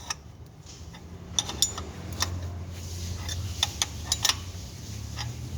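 Irregular sharp metallic clicks and taps from hand tools working a puller on the flywheel bearing of a Suzuki Karimun Wagon R engine, over a steady low hum.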